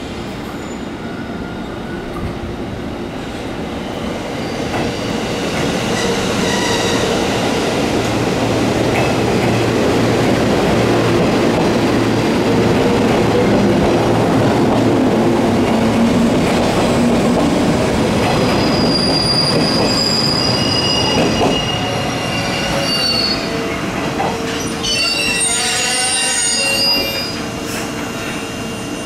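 JR 115 series electric multiple unit pulling out of the station: traction motors and wheels on the rails, growing louder as the cars run past, with the motor note rising as it picks up speed. Thin high-pitched tones come and go later as the last cars go by.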